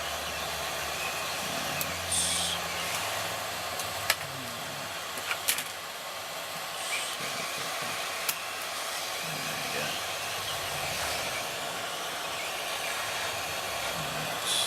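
Hot air desoldering gun blowing steadily at a high setting, heating the solder tags of a calculator display on a circuit board, with a few sharp clicks of metal tools against the board.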